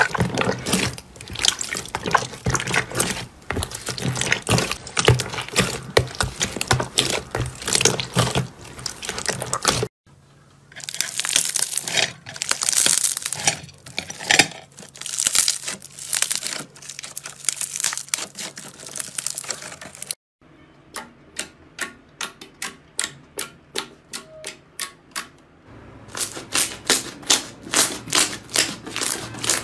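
Hands squishing and kneading slime, in three clips. First comes dense wet squelching and crackling from clear jelly slime. Softer crackling follows from fluffy white slime, then a quick, even series of sharp pops and clicks, about three a second, as slime is stretched and folded.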